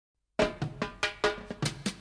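Background music opening with a drum fill: after a brief silence, even drum strikes come about five a second.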